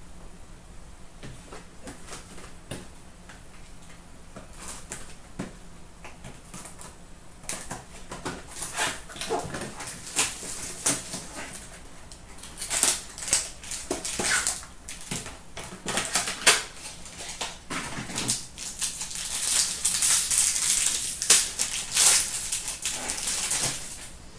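Hockey card packs being opened and the cards handled: a run of quick clicks, taps and rustles of cardboard and wrapper. It grows busier and louder after about eight seconds, with crinkling around twenty seconds in.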